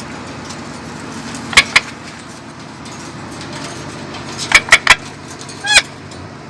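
A pet parrot making short, sharp clicks and chirps: two about a second and a half in, a quick run of three around four and a half seconds, and one short chirp near the end, over a steady low hum.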